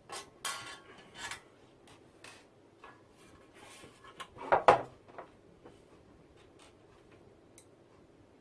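Small metal screws and parts clinking and rattling as they are handled, in irregular light clicks with a louder clatter about four and a half seconds in.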